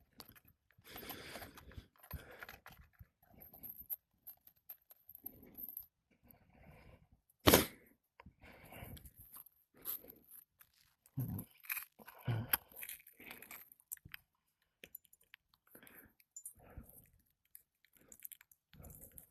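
Brittle asphalt 3-tab shingles crunching and scraping as a roof snake is worked under them to pull the nails, in irregular short bursts, with one sharp knock about seven and a half seconds in.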